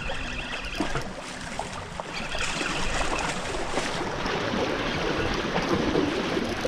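Moving water, rushing and splashing in a steady noisy wash, with a few faint clicks on top.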